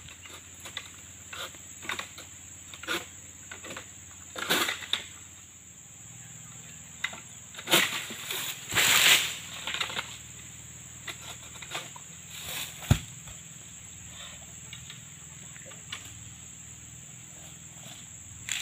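Oil palm fronds and fruit bunches being cut down with a long-poled harvesting sickle: scattered rustles and cracks of cutting and falling, and a sharp thud about 13 seconds in as a bunch hits the ground. A steady high-pitched insect drone runs underneath.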